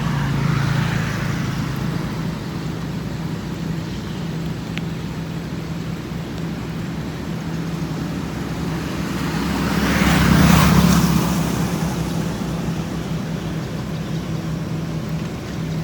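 A steady low engine hum, with a motor vehicle passing that grows louder to a peak about ten seconds in and then fades away.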